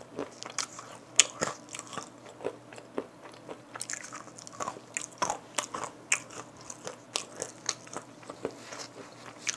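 Close-miked crunching and chewing of a chili-powder-coated roasted peanut (a stage-one Death Nut). Many sharp, irregular crunches follow one another.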